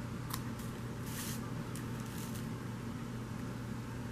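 Small craft scissors snipping the ends of a narrow ribbon: a few faint, short snips and a brief rustle, over a steady low hum.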